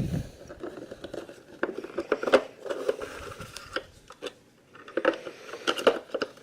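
Scattered small plastic clicks, knocks and rustling as a battery pack is fitted into a plastic RC toy bus's battery compartment and the bus is handled.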